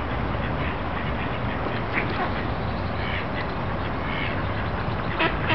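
Mallards quacking, a few short calls spaced out over a steady background hiss.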